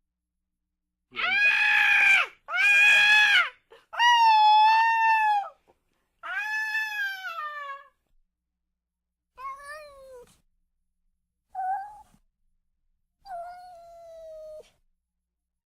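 Cat meowing over and over: seven drawn-out, arching meows, the first four loud and the last three fainter and shorter.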